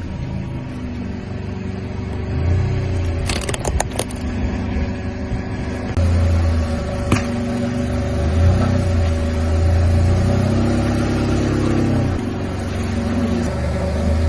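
A car's engine running at low speed, with a few sharp cracks about three and a half seconds in and again about seven seconds in.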